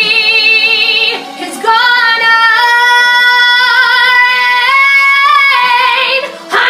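A woman singing a show tune, holding long notes with vibrato: one note for about a second, then, after a short break, a single note held for about four and a half seconds.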